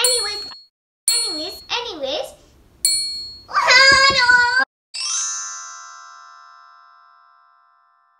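A young girl's voice making short playful sounds, then a loud, high-pitched cry about a second long, near four seconds in. About five seconds in, a single bell-like chime strikes and rings out, fading over about three seconds.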